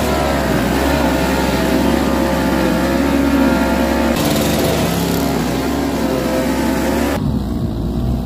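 A small walk-behind snowblower's engine running steadily under load while it clears and throws snow.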